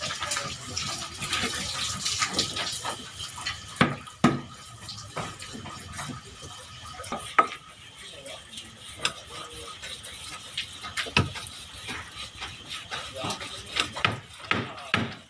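Irregular sharp knocks and clatters over a background hiss, with voices at times.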